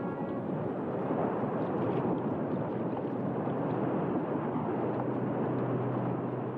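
Ice calving from the tidewater face of the Columbia Glacier and crashing into the sea: a long, loud crash of noise that builds over the first second or two and carries on. A steady low hum runs underneath from about two seconds in, and the tail of a ship's horn dies away right at the start.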